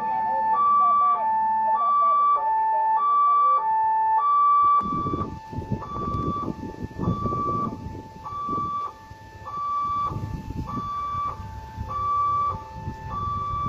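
Railway level-crossing warning alarm sounding its two-tone signal, a high and a low tone alternating about every 0.6 s, the warning that a train is approaching and the barriers are down. From about five seconds in, an uneven low rumbling noise sounds under it.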